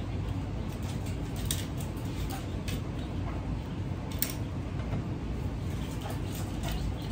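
Plastic Connect Four checkers dropped into the upright grid: a few light clicks and clatters, the sharpest about four seconds in, over steady low background noise.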